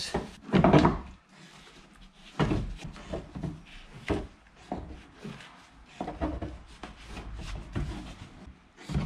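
Tin snips cutting through a car's inner wheel-arch liner: irregular crunching snips a second or so apart, with the rustle of the liner being handled between cuts.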